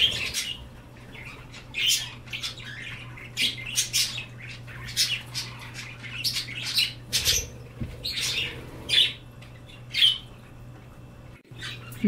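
A room of small pet parrots and parakeets chirping and squawking in short, sharp calls, scattered through, several a second at times, over a steady low hum.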